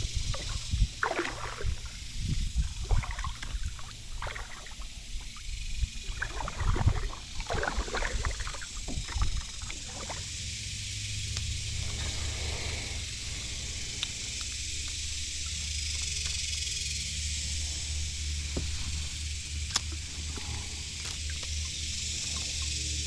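Kayak paddle strokes dipping and splashing in the water, irregular, for about the first ten seconds. Then a steady whir of an ultralight spinning reel being cranked as the lure is retrieved.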